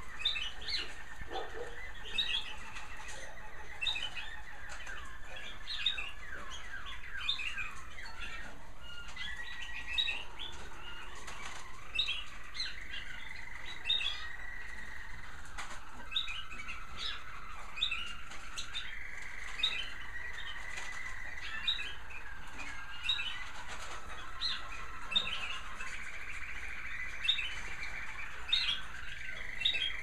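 Many American Singer canaries singing together: long rolling trills, with short sharp chirps repeating about once a second over them.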